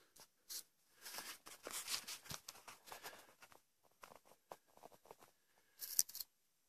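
Quiet, irregular rustling, crackling and scuffing of someone moving through dry brush and leaf litter and stepping over loose stones, with a short sharper rustle near the end.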